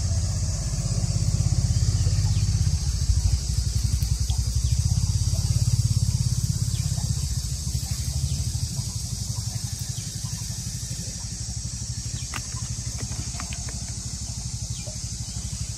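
Small engine running at a steady speed, driving a water pump that drains the fishing pond. Its note is slightly louder in the first half and eases off a little after about eight seconds.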